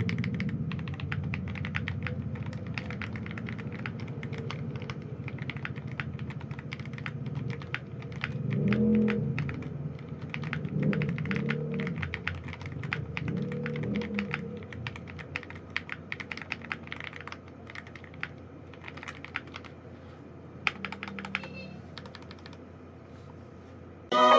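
Fast, continuous typing on an Attack Shark X87 mechanical keyboard with hot-swap linear switches and double-shot keycaps: a dense run of keystroke clacks that thins out in the last third. A low background drone swells and fades about a third of the way in.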